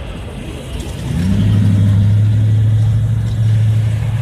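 Car noise: a low rumble, with a loud, low steady hum setting in about a second in and holding for a few seconds.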